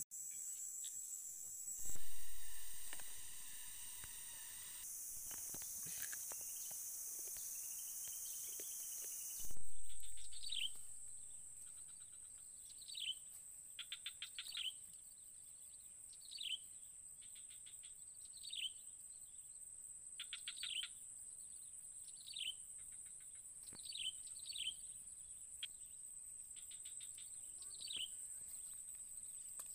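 Forest ambience: insects drone steadily at a high pitch, loudest in the first ten seconds. From about ten seconds in, a bird repeats a short falling call every two seconds or so, with stuttering, buzzy trills between the calls.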